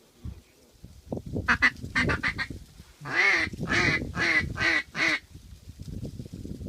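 Duck quacking: a quick run of short quacks about a second and a half in, then four long, loud quacks in a row.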